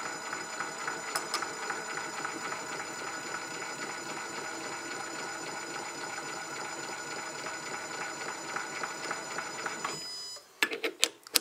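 Metal lathe running with its three-jaw chuck spinning, a steady mechanical hum with a high whine. It cuts off suddenly about ten seconds in as the spindle is stopped, followed by a few sharp clicks and knocks.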